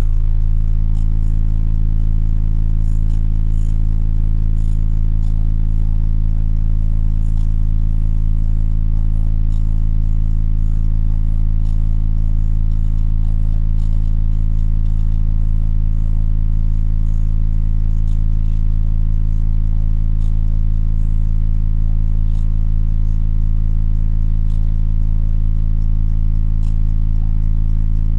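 Car audio subwoofers playing one steady, loud low bass tone held unchanged, with light rattles from the car around it.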